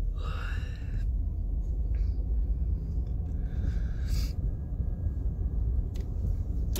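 Low, steady road and engine rumble heard inside a moving minivan's cabin, with a brief high whine about half a second in.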